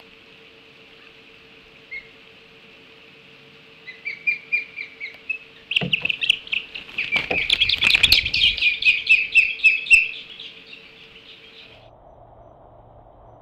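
Juvenile ospreys giving rapid, high-pitched alarm chirps over a steady high hiss. The calls start about four seconds in and turn loud and frantic as a large bird swoops into the nest, with knocks and thuds among them, then stop about two seconds before the end.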